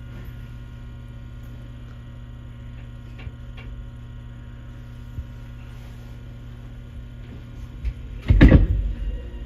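Steady electrical hum from a stationary Chichibu Railway 7500 series electric train's onboard equipment, heard from the cab. One loud sudden noise, lasting under a second, breaks in near the end.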